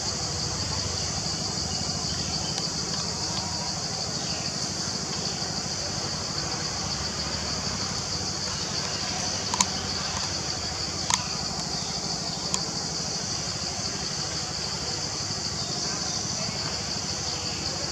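A steady, high-pitched insect chorus with a fast pulsing texture, over a low steady hum. Three sharp clicks come about a second and a half apart near the middle.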